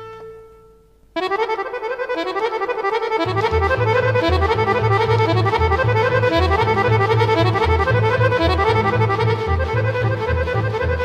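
Instrumental music led by accordion. A held chord fades out, then a new tune starts abruptly about a second in with a fast melody. A steady pulsing bass line joins about three seconds in.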